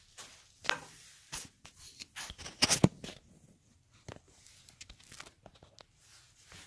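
Handling noise from a camera being moved and set down: a string of separate clicks, knocks and rustles, loudest in a quick cluster of sharp clicks just before three seconds in, then fainter ticks.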